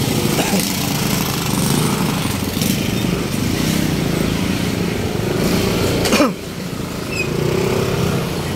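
Street traffic with small motor engines, motorcycles among them, running steadily. About six seconds in, one passes close with its sound falling in pitch, and the overall level drops.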